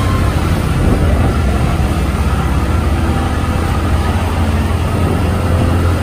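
Steady low rumble of a vehicle driving through a road tunnel: engine and road noise, with no break or change.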